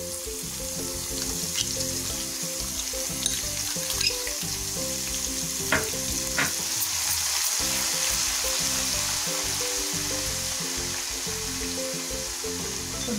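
Crushed garlic frying in hot oil with cumin and mustard seeds for a tempering, a steady sizzle with a few sharp pops.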